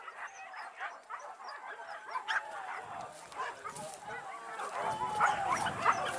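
A pack of boar-hunting dogs yelping and baying, many short calls overlapping, growing louder over the last few seconds.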